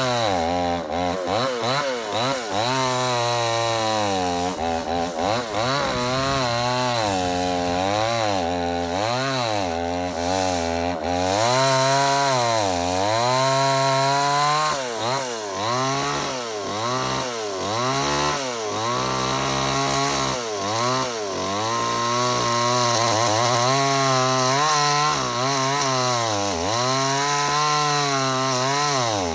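Chainsaw running under load as it cuts into a big log. The engine pitch repeatedly sags and climbs back, every second or two, as the chain bites into the wood and clears.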